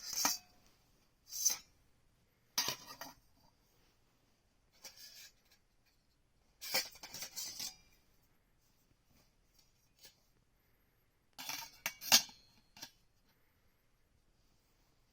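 Short clinks and rattles of small hard objects being handled, coming in separate bursts at irregular gaps, the loudest near the end.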